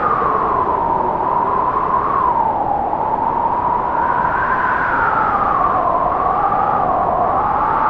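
Opening-credits soundtrack: a wailing tone that slowly rises and falls in pitch over a steady rushing hiss.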